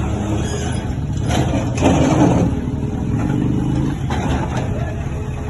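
Bulldozer's diesel engine running steadily, louder for a moment about one and a half to two and a half seconds in.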